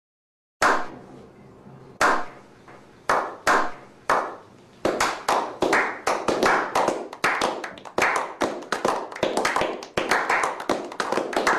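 A slow clap: a few hand claps about a second apart, starting about half a second in, that come faster and overlap into applause from a small group.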